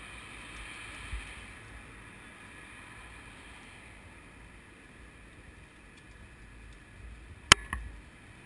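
Steady low background of a large group of cyclists riding past on city pavement, with a low rumble under it. A single sharp click about seven and a half seconds in is the loudest sound, followed by a smaller click or two.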